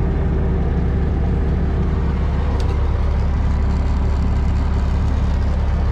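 Semi truck's diesel engine running steadily while parked, a deep, even drone heard from inside the cab.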